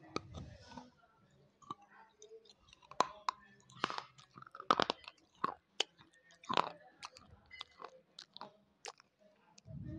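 Close-miked biting and chewing of thick wet slate pencil: a bite at the start, then irregular sharp crunches and clicks as the pieces are chewed, loudest in the middle.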